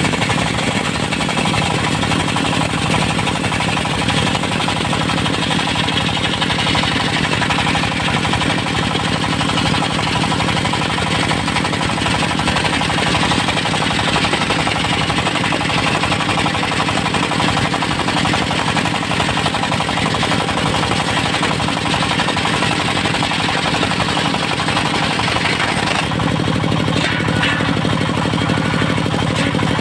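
Engine-driven circular sawmill running at speed, its disc blade cutting through a Mindi (chinaberry) log with a steady high hiss over the fast, even pulsing of the engine. A few seconds before the end the hiss drops away and the engine note comes forward, as the blade leaves the cut.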